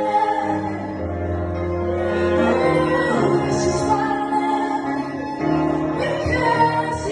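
String ensemble playing a slow, calm piece in long held notes that change every second or so.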